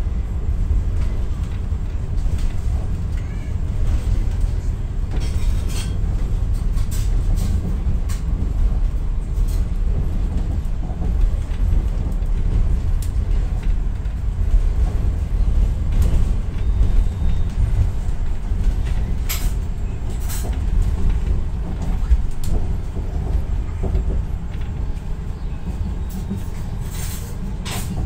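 Steady low rumble of a train running along the track, heard from inside the carriage, with occasional sharp clicks and knocks.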